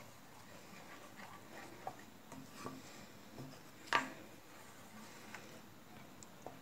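Wooden spatula stirring thick spinach gravy in a stainless steel pan: faint rubbing and scraping, with a sharper knock about four seconds in.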